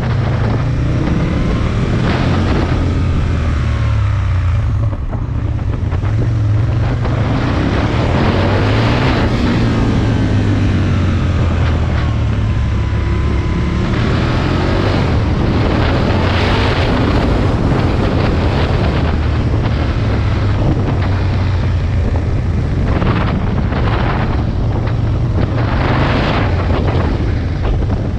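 Aprilia Tuono motorcycle engine running on the move, its pitch rising and falling with the throttle, under heavy wind noise on the microphone.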